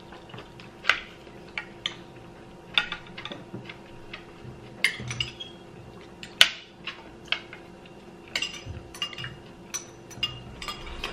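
Metal spoons clinking and scraping against a glass baking dish and small glass bowls as food is scooped out: irregular sharp clinks, a few of them louder.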